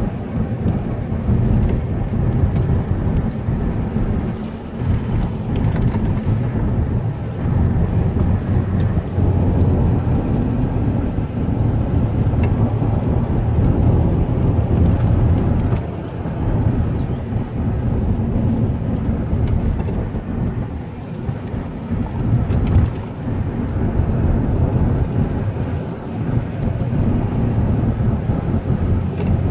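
Car driving along a winding road: a steady low rumble of road, engine and wind noise that rises and falls slightly.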